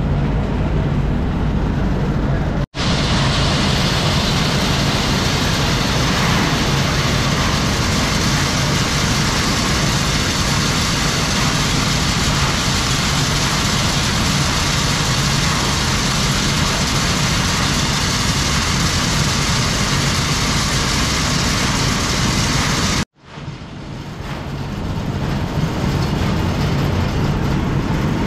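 Steady machine noise: a motor running with a constant low hum under a dense hiss. It breaks off abruptly twice, about three seconds in and again near the end.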